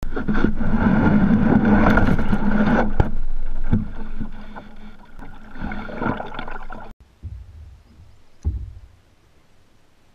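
Plastic kayak hull scraping and knocking over shoreline rocks as it is pushed off, picked up loud and close by a camera mounted on the bow. The noise is heavy for the first few seconds, with a couple of sharp knocks around three seconds. Lighter water and paddle noise follows, cutting off suddenly about seven seconds in, with a couple of dull thumps after.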